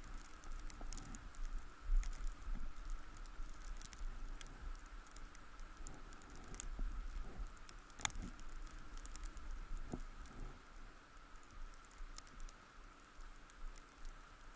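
Scattered light ticks and patter of small impacts close to the microphone, the sharpest just past the middle, over a faint low rumble of wind on the microphone.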